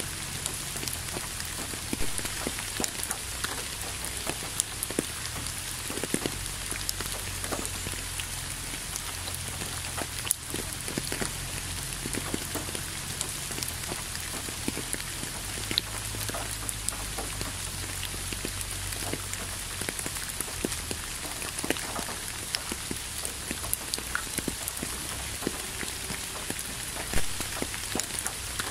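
Steady rain falling, a constant hiss with many separate drop ticks landing close by, one louder tick near the end.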